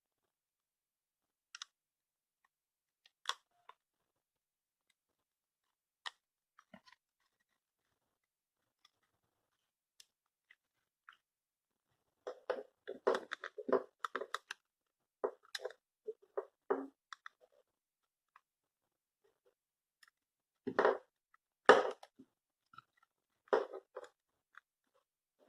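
Handling noise as cloth is stretched over a headphone ear cup and held with a rubber band: a few scattered clicks, then short crackly bursts of cloth rustling against the plastic cup and ear pad, in two busy stretches about halfway through and near the end.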